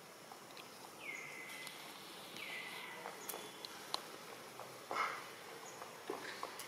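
Two short high-pitched animal calls, each sliding down and levelling off, about a second and a half apart. Scattered light clicks and a brief louder rustle about five seconds in.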